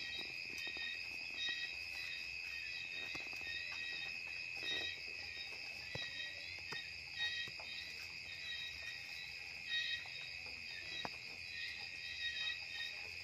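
A steady, high insect chorus with a faint pulsing chirp above it. Soft, scattered rustles and clicks of hay come through it as a pregnant lop-eared doe rabbit noses through the hay in her cage.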